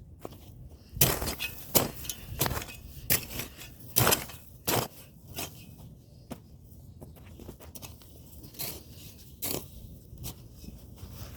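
Crunching strikes of a hand tool chopping into dry ground and plant matter during field work, coming quickly at about one and a half a second, then only a couple more near the end.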